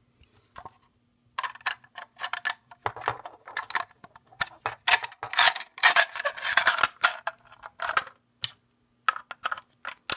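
Handling noise from a polymer AR-15 magazine and its small parts: a run of clicks, rattles and scrapes, busiest in the middle.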